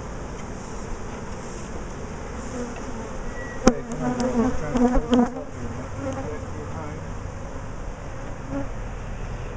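Honeybees from a package of Italian bees buzzing in a mass around an open top bar hive, with one sharp knock a little over a third of the way in. Just after the knock, individual bees buzz louder and closer for about a second and a half.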